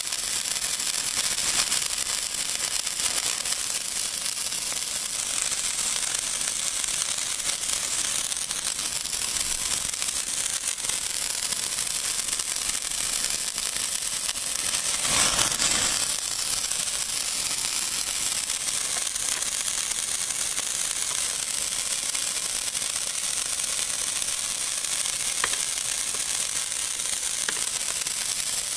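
Old Moog Nico 'Extra Bunt' coloured sparklers burning with a steady sizzling hiss and an odd crackling sound. The sound swells briefly about halfway through.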